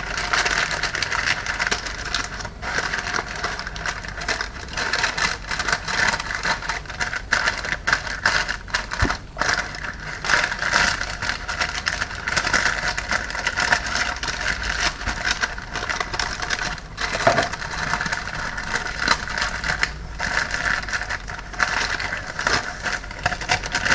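Sheet of paper crinkling and rustling almost without a break as a hand presses and smooths it over warm fudge in a tray.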